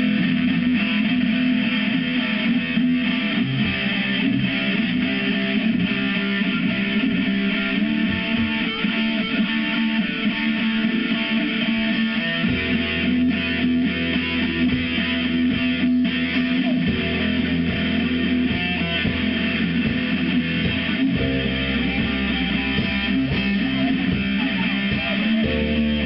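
Live rock band playing an instrumental passage on amplified electric guitars. Heavy low notes come in about halfway through and shift every few seconds.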